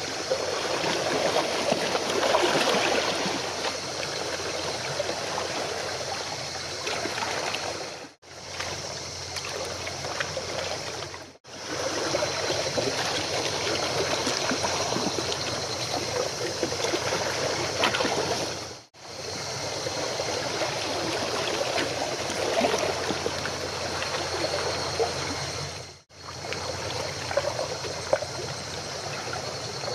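Sea water splashing and trickling in a steady rush, with a faint steady high whine over it. The sound drops out briefly four times.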